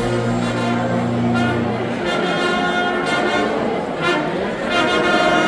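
Guggenmusik brass band playing loud held chords on trumpets and trombones over a low bass note that stops about two seconds in.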